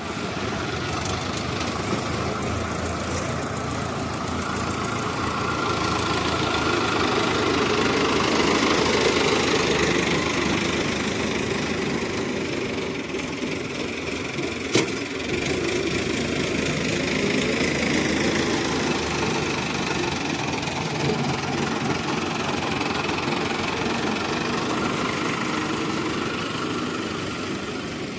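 Heavy diesel machinery, an excavator and farm tractors, running steadily, the engine drone swelling and easing slowly, with one sharp knock about halfway through.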